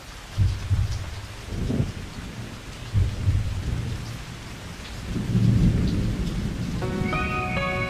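Steady rain with several low rumbles of thunder, a recorded storm effect at the opening of the song. About seven seconds in, melodic notes of the music start over the rain.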